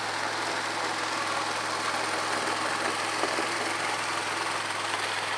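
ATV engine running at a steady low speed as the quad rolls slowly past, an even drone that holds one pitch.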